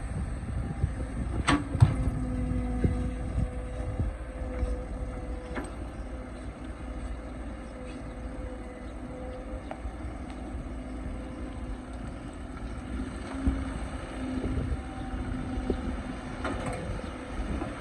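Excavator's diesel engine running steadily, with a steady whine and a few sharp knocks, the loudest about a second and a half in.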